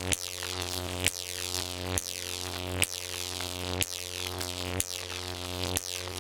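Jacob's ladder high-voltage arc buzzing with a steady electrical hum. A sharp crack comes about once a second as the arc climbs, breaks and strikes again at the base of the electrodes.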